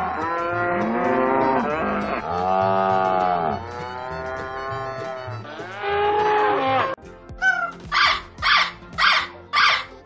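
Cattle mooing: several long, drawn-out calls that bend in pitch, one after another. About seven seconds in they cut off abruptly, followed by a steady run of short, sharp calls, about two a second.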